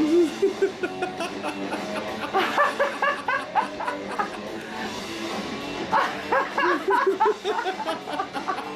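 Background music with a small monkey's short squeaky calls, coming in quick clusters about a third of the way in and again about two-thirds of the way through.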